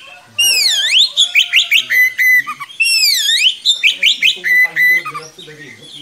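Oriental magpie-robin (kacer) singing loudly in two similar phrases, each opening with a whistle that swoops down and back up, then quick rattled notes and level whistled notes.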